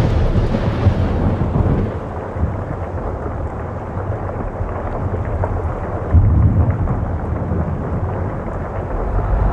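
Steady heavy rain hissing, with thunder rumbling low beneath it; a louder roll of thunder swells about six seconds in.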